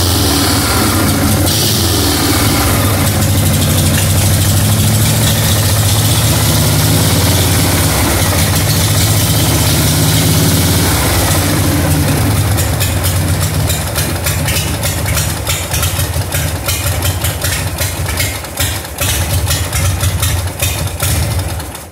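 1980 Harley-Davidson FXEF Shovelhead's V-twin engine idling while the bike stands still. About halfway through, the steady idle breaks into an uneven beat of separate firing pulses.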